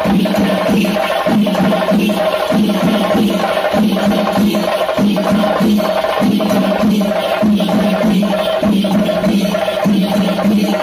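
Chenda melam: a group of stick-beaten chenda drums playing a fast, steady rhythm.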